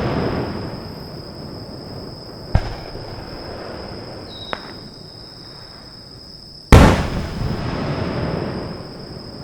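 Fireworks display: aerial shells bursting, a smaller bang about two and a half seconds in and a loud bang near seven seconds, each followed by a long echo that dies away over a couple of seconds.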